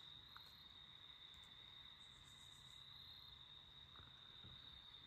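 Near silence with crickets giving a faint, steady high-pitched trill.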